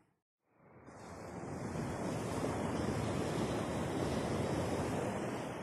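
Surf washing onto a sand beach, with wind on the microphone, as an even rushing noise. It swells in about half a second in, holds steady, and starts to fade near the end.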